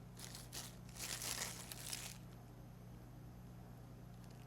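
Packaging crinkling and rustling in several short bursts as parts are handled and unwrapped. It stops about two seconds in, leaving a faint steady low hum.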